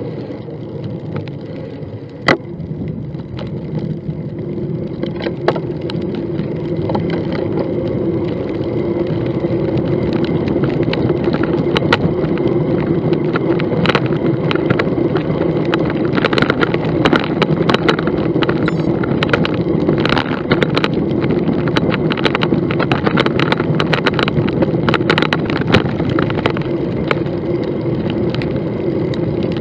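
Bicycle riding along an asphalt path at about 25 km/h, giving steady tyre and road noise with many small clicks and rattles that grow busier and louder through the second half. One sharp knock about two seconds in.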